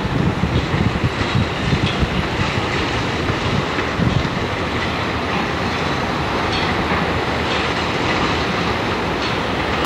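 Ocean surf breaking on the shore: a steady, loud rush of waves with a low rumble underneath.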